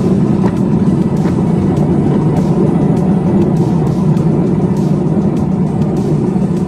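Miniature 10¼-inch gauge train running along the track: a steady rumble with scattered clicks from the wheels on the rails.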